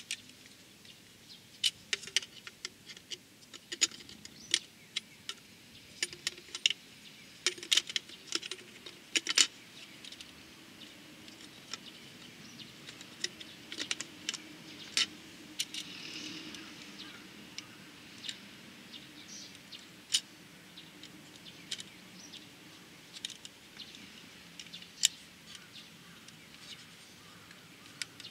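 Small sharp metal and plastic clicks as a halogen headlight bulb and its wire retaining spring are handled and seated in a Honda Super Cub's headlight housing. The clicks are irregular and come most thickly in the first ten seconds.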